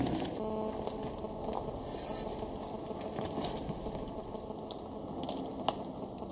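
Rustling of leaves and undergrowth with scattered clicks and handling noises, and a brief hiss about two seconds in.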